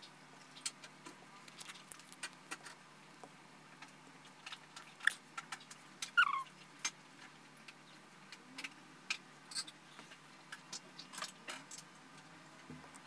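Scattered faint clicks, taps and crinkles of hands handling an iPhone, small wipe packets and the backing films of camera lens protectors, with one short falling squeak about six seconds in.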